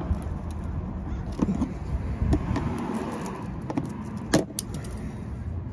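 A flathead screwdriver working a stuck plastic push-clip fastener out from under a car bumper: scattered small clicks and scrapes, with one sharp click a bit over four seconds in, over a steady low outdoor rumble.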